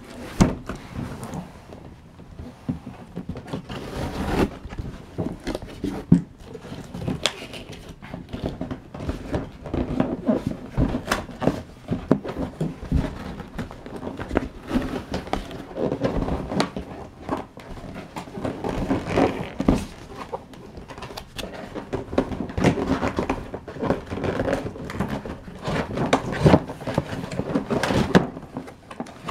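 A cardboard retail box being handled and opened: flaps pulled, cardboard scraping and rustling, with many irregular knocks and thumps.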